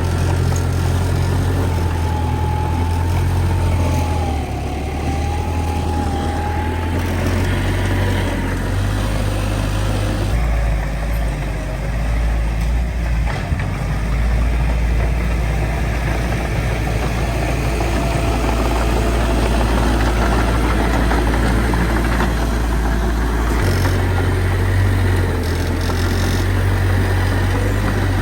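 Heavy diesel engine of earth-moving machinery running steadily under load, its low drone stepping in pitch a few times as the throttle changes, with a faint wavering whine in the first several seconds.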